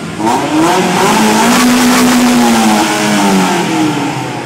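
Toyota MR2's engine revving: the pitch climbs over about two seconds, holds briefly, then falls back toward idle near the end.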